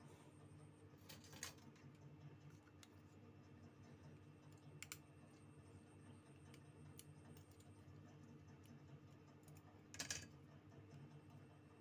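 Near silence with a faint steady hum and a few light clicks of small repair tools handling a mobile phone's parts. The loudest click comes about ten seconds in.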